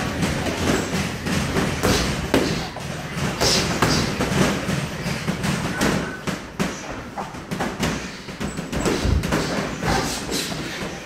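Sparring in a boxing ring: gloved punches thudding on gloves and headgear, mixed with shoes shuffling and stamping on the ring canvas, a run of irregular thumps.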